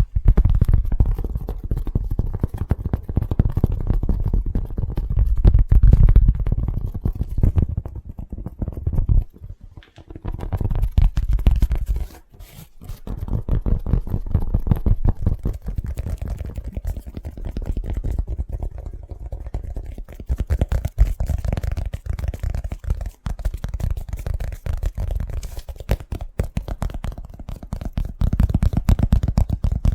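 Fast, aggressive finger tapping on an object, close to the microphone: a dense run of quick taps with heavy low thuds, broken by short pauses about nine and twelve seconds in.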